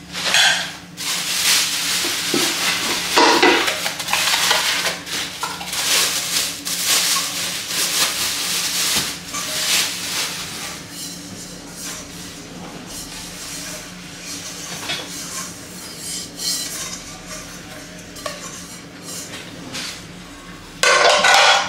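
Packaging wrap rustling and crinkling as a cast aluminium cooking pot is pulled out of its box and unwrapped, with light clinks of the metal pot. The rustling is busiest in the first half and eases off later.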